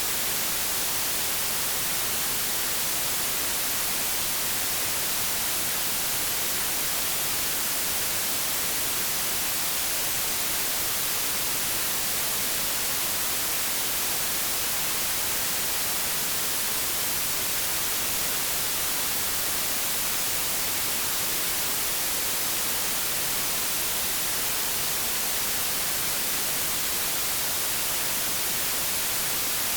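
Steady white-noise static hiss, unchanging and even, strongest in the high frequencies, like an untuned television or radio.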